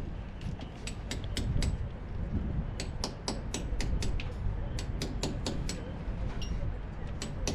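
Low wind rumble on the microphone with a string of sharp, irregular clicks, a few a second.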